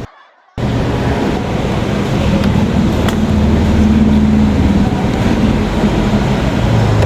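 Yamaha Mio Gear 125 scooter's single-cylinder engine running steadily, cutting in about half a second in and picking up slightly in the middle before settling: the scooter that would not start is now running.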